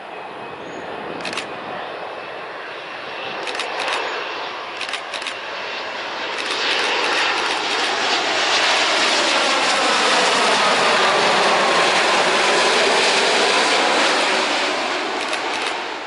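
Jet engines of a twin-engine widebody airliner, a Boeing 787-10, on landing approach passing low overhead: the noise builds, is loudest in the second half with a falling whine as the jet goes by, then fades quickly near the end. A few short crackles in the first half.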